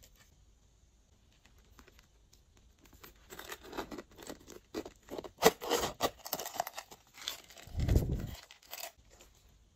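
Glossy slime being squeezed, stretched and pressed by hand, with crackling little pops and clicks. The sound starts about three seconds in and ends in a low, heavy squelch.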